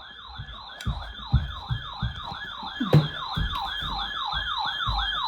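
Electronic siren-style alert tone heralding a flash flood warning broadcast: rapid falling sweeps, about three a second, getting steadily louder. Low thuds sound underneath, and there is a sharp click about three seconds in.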